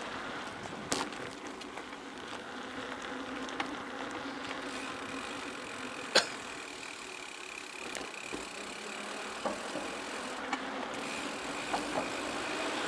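Tyres rolling down a gravel forest road with a steady crunching hiss, broken by two sharp knocks, about a second in and about six seconds in.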